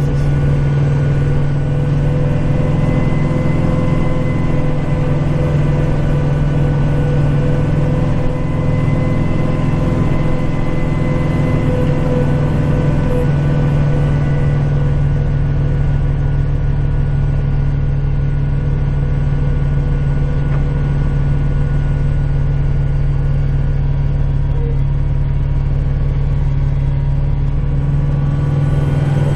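Kubota tractor's diesel engine running steadily under load while snow plowing, a constant low drone with a steady hum, heard from inside the cab.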